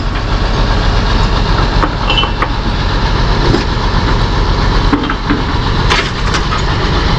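Heavy tiling machinery's engine running steadily with a deep hum, with a few short knocks and clanks over it.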